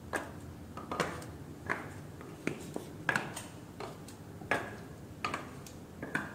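Wooden clogs clacking on a hard floor at a walking pace: about eight sharp, hollow wooden knocks, roughly one every three-quarters of a second.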